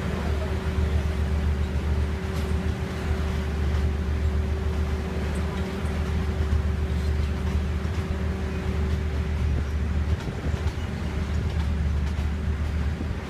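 Train running noise: a steady low hum with a held mid-pitched tone over an even rushing hiss.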